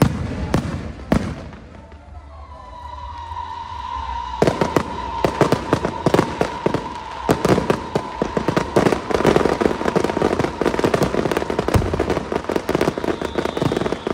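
Aerial fireworks shells bursting: a few separate bangs, then from about four seconds in a dense, rapid barrage of cracks and bangs that builds toward the end.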